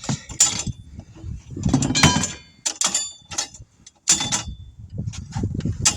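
Irregular metallic clanks and clinks of tire-changing tools against a steel wheel rim as a tire is worked off it after its bead has been broken, several sharp knocks with a short ringing after them.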